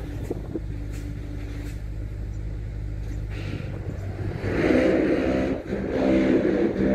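A motor engine running steadily at a low hum, then revving up louder about four and a half seconds in.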